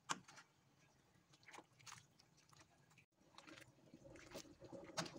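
Faint wet clicks and scrapes of a wooden spatula stirring a thick curry in a metal pan, in scattered separate strokes, the loudest just after the start.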